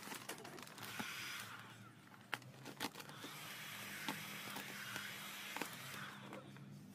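A large sheet of matte black vinyl wrap film rustling and crinkling as it is gathered and shaken by hand, with scattered sharp crackles.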